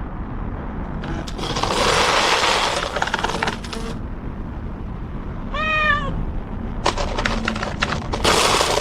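A cat meows once, a short call that rises and falls in pitch, about five and a half seconds in. A stretch of hissing noise comes before it, and a run of sharp clicks and clatter follows it.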